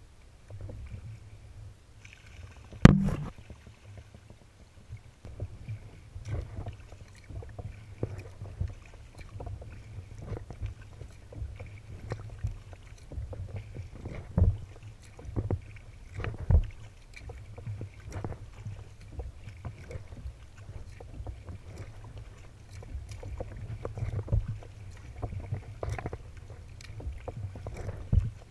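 Sea kayak being paddled: the paddle blades dip and splash at a steady stroke rhythm, with water lapping and dripping against the hull, over a steady low rumble. A single sharp knock about three seconds in is the loudest sound.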